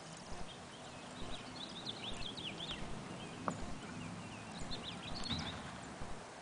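A child's kick scooter rolling along a concrete sidewalk, its small wheels making an uneven series of light clicks and clacks. Birds chirp in two short runs, about a second in and again past the middle.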